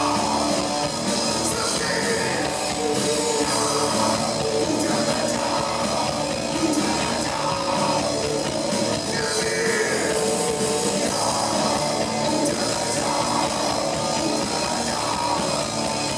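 Live rock band playing: electric guitars, bass guitar and drum kit, with a singer's voice in places.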